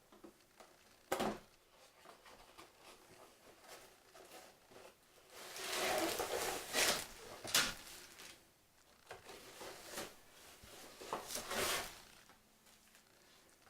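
Cardboard model-kit box being handled and opened: a sharp knock about a second in, then spells of rustling and scraping of cardboard and paper through the middle and again near the end as the contents are taken out.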